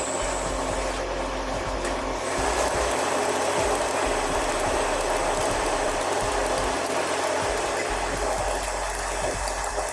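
Metal lathe running steadily, turning a steel shaft: a continuous mechanical whir with a low hum that comes and goes.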